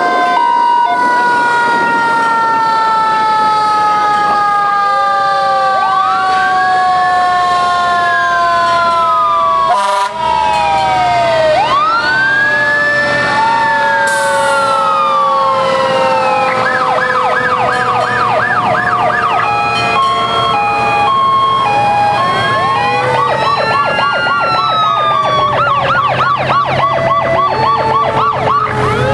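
Several fire truck sirens sounding together as the trucks pass: a long, slowly falling wail underneath, repeated rising-and-falling wails, and a fast yelp that comes in about two-thirds of the way through, with bursts of a two-tone hi-lo.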